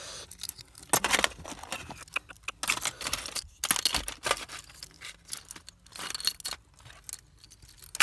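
Loose metal wristwatches and steel watch bracelets clinking and jangling against each other and a tin box as a hand rummages through them, in irregular clusters of sharp clicks.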